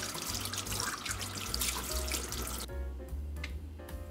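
Kitchen tap running water into a stainless steel sink, shut off about two and a half seconds in. Background music with a steady bass line plays underneath.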